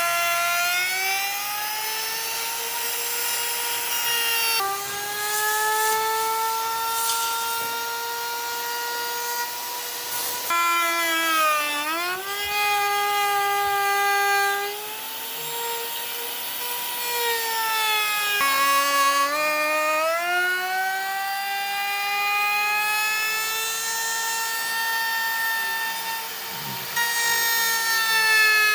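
Electric woodworking power tool's motor whining at a high pitch. The pitch sags as the tool takes load in the wood and climbs back as the load eases. The whine jumps abruptly to a new pitch three or four times.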